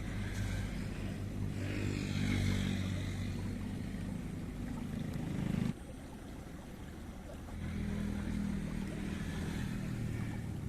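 A small engine running with a steady low hum, which breaks off suddenly about halfway through and comes back about two seconds later.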